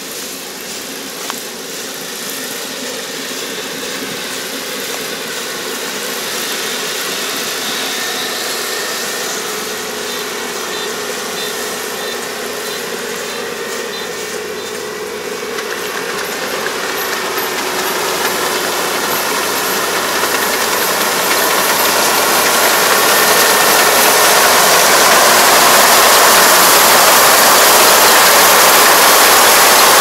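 Kubota ER470 combine harvester running as it cuts rice: a steady diesel engine and machinery din that grows steadily louder as the machine approaches, loudest over the last several seconds.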